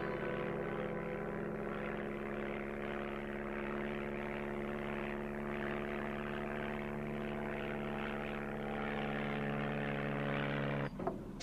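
Propeller aircraft engine droning steadily in flight, stopping abruptly near the end.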